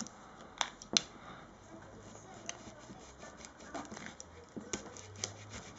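Scraping and a scattering of sharp clicks as a card is worked under a glued, flexible pouch battery to peel it off a tablet's frame. The loudest click comes about a second in.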